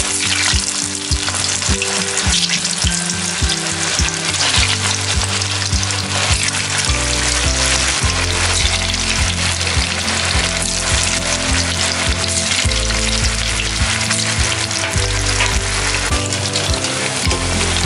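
Vegetable Manchurian balls deep-frying in hot oil in an aluminium kadhai: a steady, dense sizzle and bubbling as the balls are dropped in one by one.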